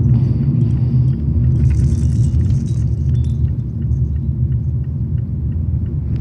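Steady low rumble, with a brief high rustle and a few small clicks between about one and a half and three seconds in.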